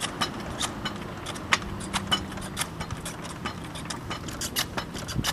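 Irregular light clicks and metal rattles from a foot-pumped mower lift being worked, over a faint steady low hum.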